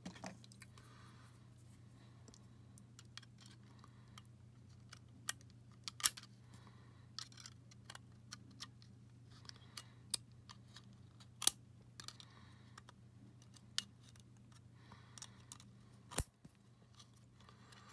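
Scattered small clicks and taps of a GoPro Hero 7 Black's plastic and metal frame parts being handled and worked by fingers, the sharpest about six, eleven and a half, and sixteen seconds in, over a faint steady low hum.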